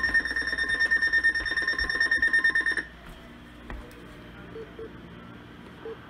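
Weather radio's alert alarm sounding for a flash flood warning: a steady high-pitched tone pulsing rapidly, which cuts off abruptly about three seconds in and leaves faint room sound.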